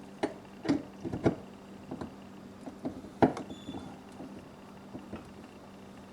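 Light, scattered clicks and taps of faucet parts being handled and fitted together while the faucet is put back together, the loudest about three seconds in.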